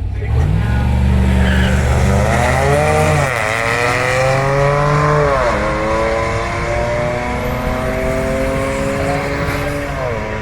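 Drag race cars launching off the line and accelerating hard down the strip. The engine pitch climbs and drops sharply with upshifts about three, five and a half and ten seconds in.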